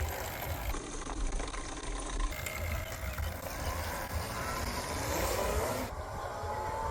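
Rawrr 72-volt electric dirt bike running, with a steady rushing noise; near the end its electric motor whine rises in pitch as it speeds up.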